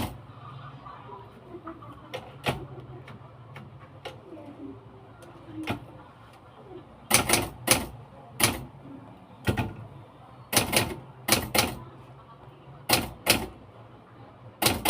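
Typewriter keys striking in slow, irregular pecks: single strokes and quick pairs with pauses between, sparse at first and coming more often from about seven seconds in.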